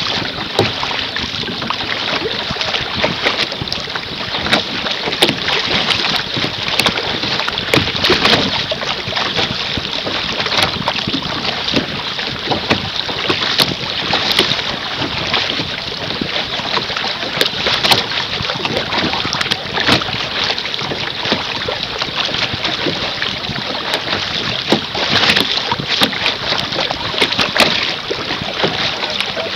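Water rushing and splashing against the bow of a canoe moving through choppy sea: a steady wash with many irregular small splashes, plus wind buffeting the microphone.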